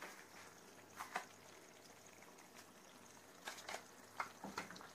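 Faint simmering of a pan of chicken and okra curry, with a few soft ticks and rustles as spice is shaken over it.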